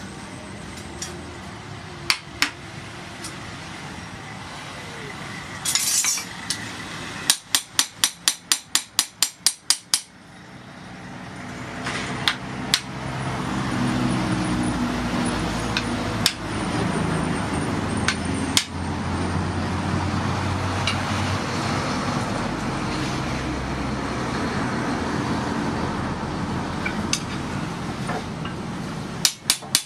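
Hand hammer striking steel on a post anvil: a quick run of about a dozen evenly spaced blows, with another run starting near the end. In between, a steady machine drone fades in and holds.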